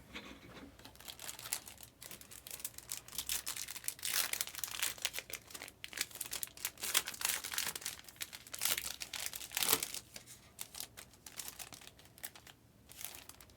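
Foil wrapper of a trading-card pack being torn open and crinkled by hand, a dense run of sharp, irregular crackles that stops near the end.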